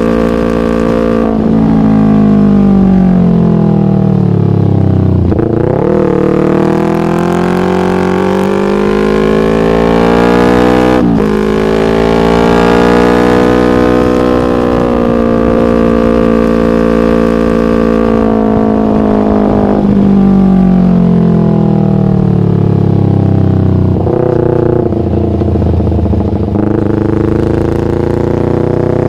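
Yamaha MT-25's 250 cc parallel-twin engine breathing through an aftermarket Shadux racing exhaust, running loud with engine speed repeatedly falling away over several seconds and then rising sharply again.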